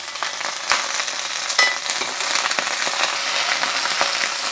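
Wet, freshly washed bok choy sizzling in hot oil in a cast iron skillet, a steady crackling hiss with occasional sharp pops and clicks as water on the leaves hits the oil.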